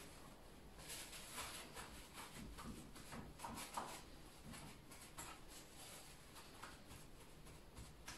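Faint soft rustling and light taps as a paper napkin is patted over raw chicken legs on a cutting board.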